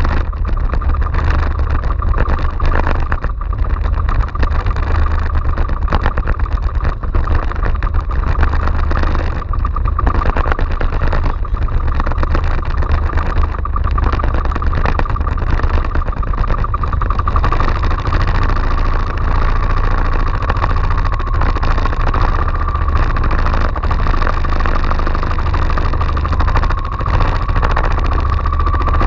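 Inboard engine of a motorised outrigger fishing boat running steadily under way, a fast even pulsing with a steady whine over it.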